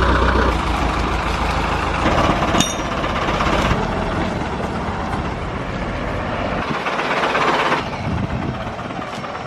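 A vehicle engine running with a rattling, clattering noise while a boat trailer is moved into place, with a sharp click about two and a half seconds in. The noise eases off near the end.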